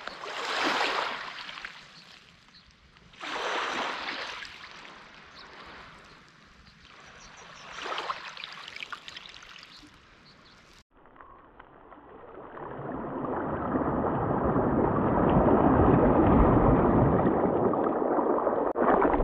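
Small waves washing onto a lake shore, three surges a few seconds apart. About eleven seconds in, the sound cuts abruptly to a duller, muffled rush of noise that swells over a couple of seconds and holds loud until near the end.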